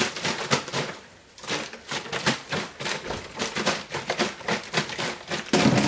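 Water with a little chlorine being shaken hard in a plastic HDPE bottle to sanitise it, sloshing in quick regular strokes, about three or four a second, with a short pause a little over a second in.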